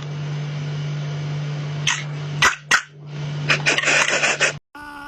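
A steady machine-like hum with clicks and rattles over it cuts off abruptly, and a cat yowls near the end.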